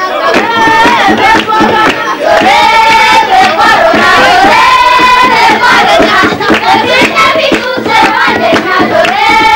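A crowd singing together in a traditional Ethiopian wedding song, with long held, wavering sung notes, over steady hand-clapping.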